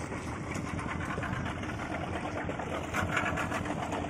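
Small boat engine idling steadily close by.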